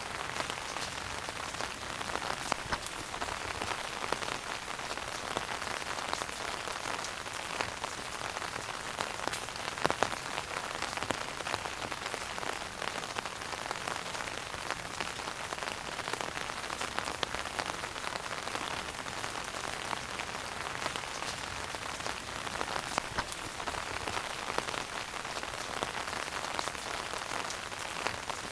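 Wood fire burning in a fireplace: a steady hiss with frequent small crackles and pops, and a few louder pops, one about ten seconds in.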